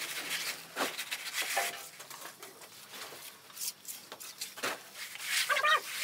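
Short scrapes of a straight-edge bar and hand trowel drawn over wet concrete while it is levelled, several times with pauses between. A short animal call near the end.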